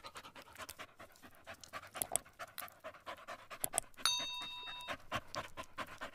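A dog panting rapidly and steadily. A brief bell-like chime rings about four seconds in.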